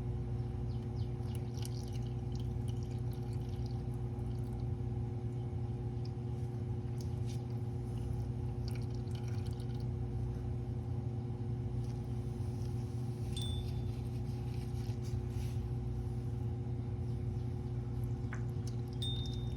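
Engine oil draining from a 2012 Lexus RX 350's oil pan into a catch pan, over a steady low hum. Scattered light clicks and small knocks come in now and then.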